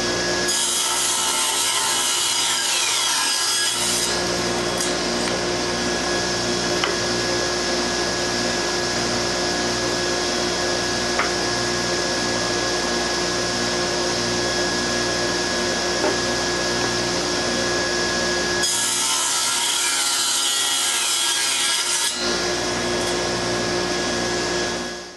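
Table saw running with a steady motor hum while pallet-wood boards are ripped along one edge to give them a flat side. Two cuts of a few seconds each are heard, the first about half a second in and the second near the end. The saw's sound dies away at the very end.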